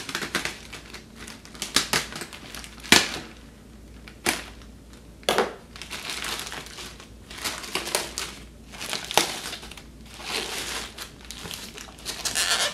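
Plastic courier mailer being pulled and torn open by hand: crinkling and crackling plastic, with several sharp, loud crackles.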